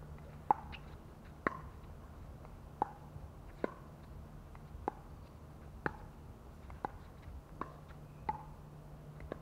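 Pickleball rally: paddles striking a plastic pickleball back and forth, a sharp hollow pop about once a second, nine hits in all.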